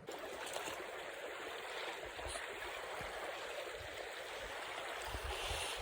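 Steady rushing of a small mountain river's flowing water.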